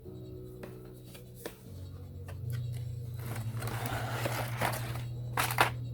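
Packaging being handled: rustling and scraping with a few sharp clicks, the loudest near the end, over soft background music with a low sustained bass.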